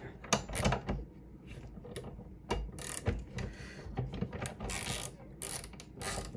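Socket ratchet wrench clicking in short, uneven runs as its handle is swung back and forth. It is turning the screw of a sight pusher, pressing a new rear night sight into a 1911 slide's dovetail.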